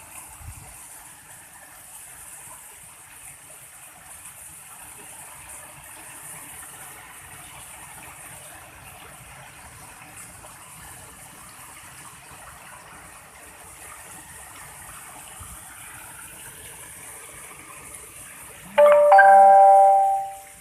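Water splashing steadily down an artificial rock waterfall. Near the end, a loud two-note chime rings for about a second and a half, much louder than the water.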